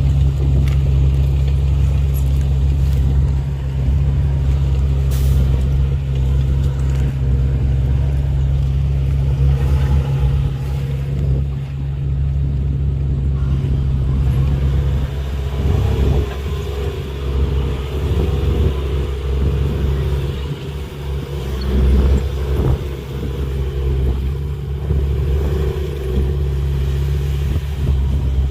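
A motor vehicle running: a steady low rumble.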